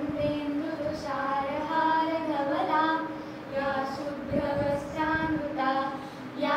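A group of children singing a prayer together, in held, melodic notes.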